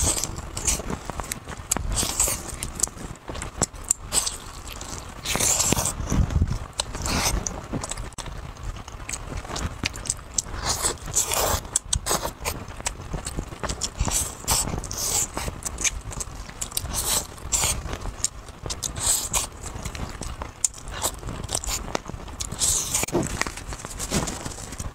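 Biting and chewing of roast chicken close to the microphone: meat pulled off the bone with the teeth and chewed, in irregular short bursts.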